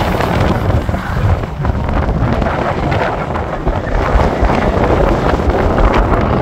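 Wind buffeting the microphone, over the engines of sprint cars running on the circuit.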